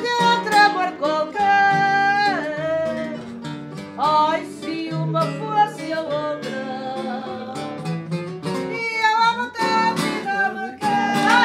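Fado sung by a woman's voice, with long held notes that waver in vibrato. She is accompanied by plucked Portuguese guitar and viola de fado (classical guitar).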